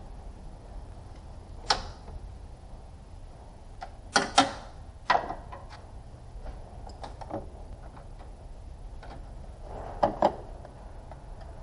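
Sharp clicks and knocks over a low steady hum: one click about two seconds in, a quick double knock about four seconds in with another just after five, and a second double knock about ten seconds in.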